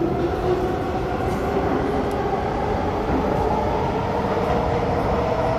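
SMRT C151B metro train heard from inside the carriage while running through the tunnel: a steady rumble with a traction-motor whine that rises slightly in pitch.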